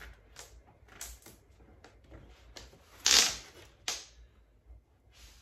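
Glitter vinyl wrap film rustling and scraping in a run of short strokes as it is pulled and pressed down by a gloved hand. The loudest stroke is about three seconds in, with a shorter sharp one just before four seconds.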